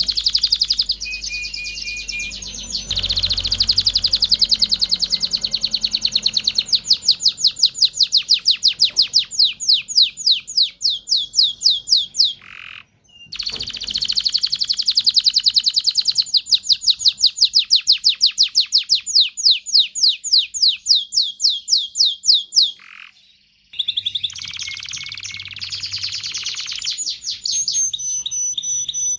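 Domestic canary singing: long, loud phrases of rapidly repeated high notes (trills), some runs slowing into more widely spaced notes. The song breaks off briefly twice.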